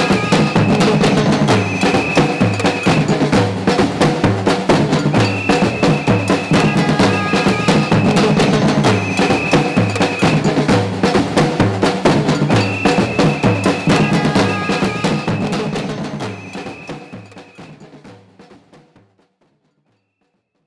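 Street protest drumming band playing a fast, steady rhythm on large drums and snare drums, with a long high tone sounding over it several times. The drumming fades out over the last few seconds.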